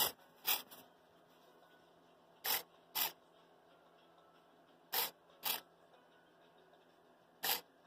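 Micro hobby servo, run by an Arduino program, whirring briefly each time it moves a Stirling engine's displacer rod. The whirs come in pairs half a second apart, and each pair repeats about every two and a half seconds.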